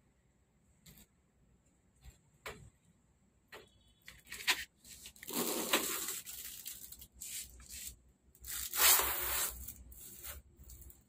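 Large plastic diffuser sheet from an LCD TV's backlight being lifted and flexed by hand, rustling and rubbing against the frame. It makes scattered light clicks and two longer scraping rustles, the louder one near the end.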